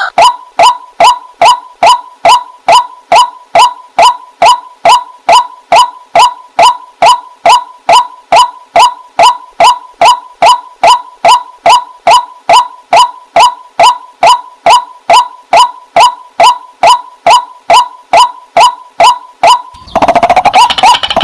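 Water hen (jal murgi) calling: a short, sharp note repeated evenly about two and a half times a second. Near the end the notes run together into a denser stretch.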